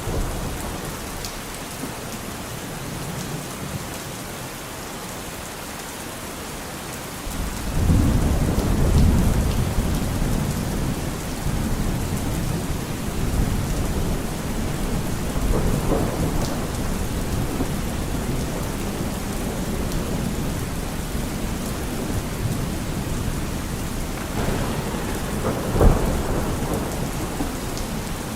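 Thunderstorm: steady rain falling, with thunder. A low rumble of thunder sets in about a quarter of the way through and rolls on, and a sharp crack of thunder comes near the end.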